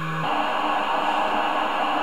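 CNC machine running: a steady motor whine changes abruptly about a quarter second in to a higher, fainter tone, over a steady hiss, as the stepper motors change speed.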